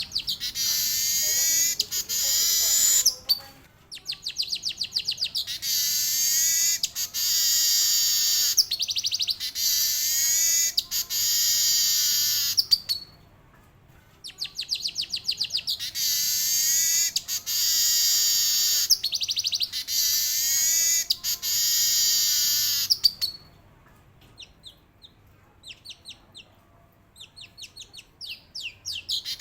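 Male manyar weaver singing long rolling song bouts of rapid, high trilled notes, three long runs broken by short pauses, then softer scattered quick ticking calls near the end.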